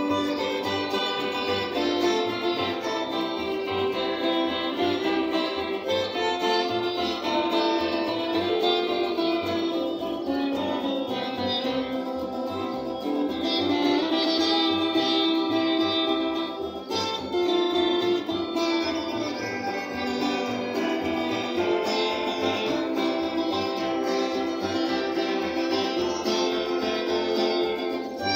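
Church worship music played on several acoustic guitars and an upright double bass, with a choir of men's voices singing along.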